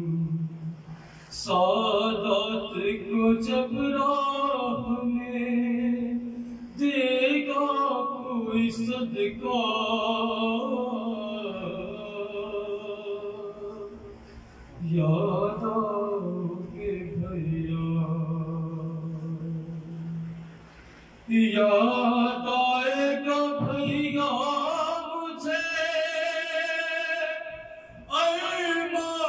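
A man's solo voice singing a devotional Urdu kalam (salam) in long, held melodic phrases, with short pauses between lines and no instruments.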